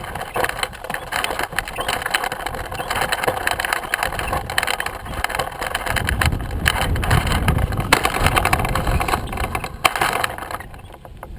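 Washing machine running, with dense clattering and rattling over a churning noise; a low rumble builds about halfway through, and the sound falls away near the end.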